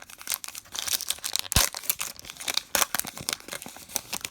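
Baseball card pack wrapper being torn open and crinkled, a dense run of crackles with one sharp snap about one and a half seconds in.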